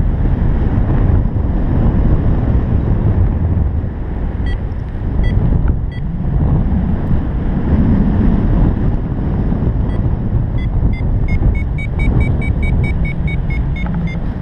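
Wind rushing over a GoPro microphone in paragliding flight, with a variometer beeping: three scattered beeps around the middle, then a quick, even run of about three beeps a second near the end, the vario's signal that the glider is climbing in lift.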